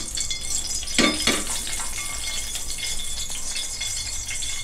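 A metal spoon clinks against kitchenware a few times, the loudest strikes about a second in, over a steady hiss from a metal pan of oil warming on a gas burner.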